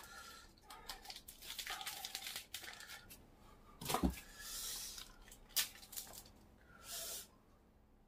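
Plastic ramen sauce and seasoning packets crinkling as they are torn open and squeezed out into a cup of instant noodles, with one sharp knock about four seconds in.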